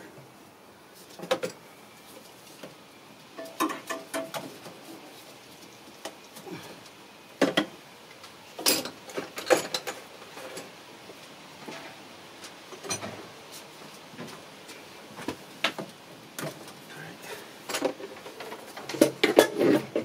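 Irregular metallic clinks, knocks and rattles of bolts, parts and hand tools being handled during engine teardown, with parts rattling in a metal biscuit tin. The clinks come in scattered clusters rather than a steady rhythm.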